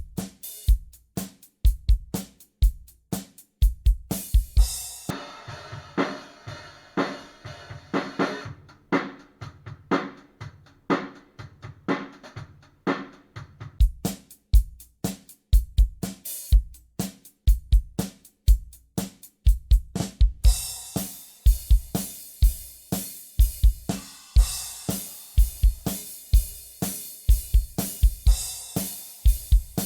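Acoustic drum kit played in a steady groove of bass drum, snare and hi-hat. About two-thirds of the way in, cymbals start ringing continuously over the beat.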